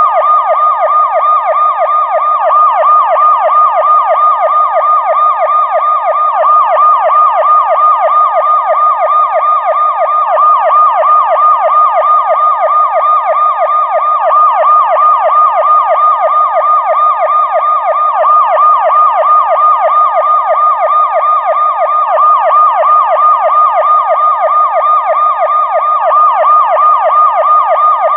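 Police siren on its fast yelp setting: a loud, steady rise-and-fall wail repeating several times a second without a break.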